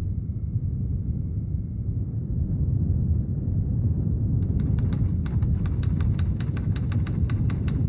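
A low, steady rumble, joined about halfway through by a rapid run of sharp, irregular clicks like keys being typed, several a second.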